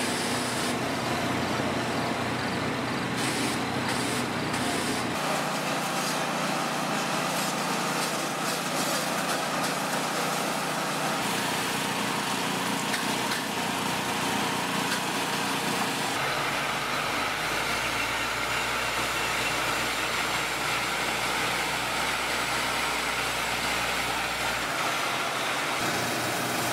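Steady engine and machinery noise, its character changing abruptly several times.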